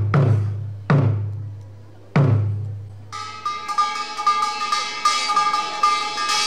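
Korean percussion: three deep struck strokes with a long, low ringing decay, then from about three seconds in a kkwaenggwari (small brass hand gong) played with quick light mallet strokes, giving a bright, steady metallic ringing.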